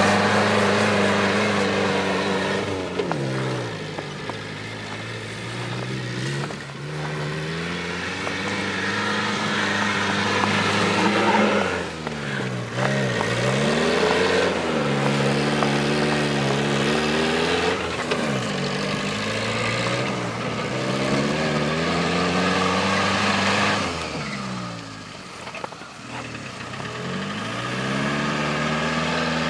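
A Suzuki Samurai's engine driving in circles on snow, revving up and down. The revs drop sharply and climb back again several times, with the deepest dip near the end.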